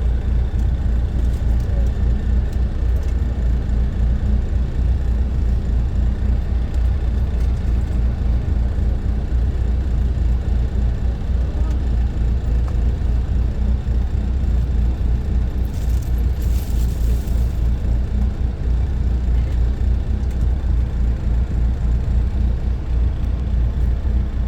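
Steady engine and road rumble inside a moving tour bus, with a brief hiss about sixteen seconds in.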